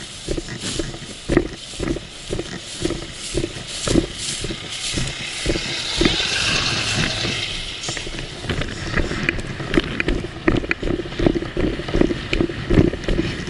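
Roadside traffic on a two-lane road: a pickup truck passes close by about six seconds in, its tyre and road noise swelling and fading. Irregular thumps and knocks on the microphone run throughout.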